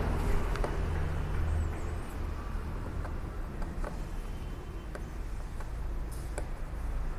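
Classroom room noise: a steady low rumble, heavier for the first two seconds, with a few faint scattered clicks and taps and one brief faint high chirp about one and a half seconds in.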